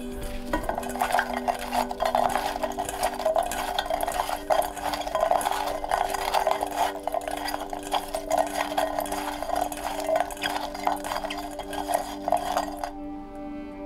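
Salted bitter melon slices being kneaded by hand in a stainless steel bowl: a dense, continuous scraping and clattering of the pieces against the metal, which stops abruptly about a second before the end. The salt rubbing draws out the melon's excess water.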